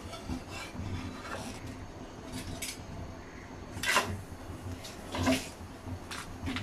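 Metal spatula knocking and scraping on a flat tawa griddle as a roti is flipped and pressed, with two sharper clacks about four and five seconds in.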